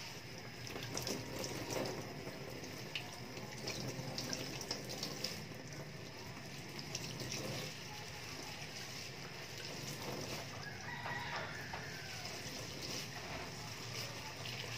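Tap water runs and splashes into a stainless steel sink while an ink-soaked foam pad is rinsed and squeezed by hand. A rooster crows in the background about eleven seconds in.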